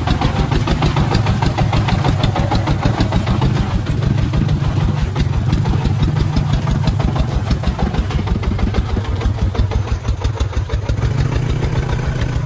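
Single-cylinder diesel engine of a sand-loaded công nông farm truck chugging steadily under load as it pulls along a muddy track, with a rapid, even beat of firing pulses, easing a little near the end.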